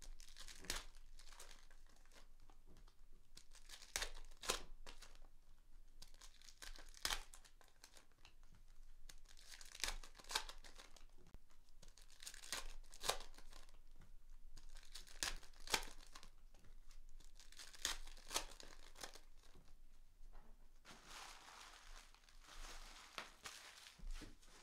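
Foil wrappers of Optic basketball card packs being torn open and crinkled, with scattered sharp snaps and a longer stretch of crinkling near the end.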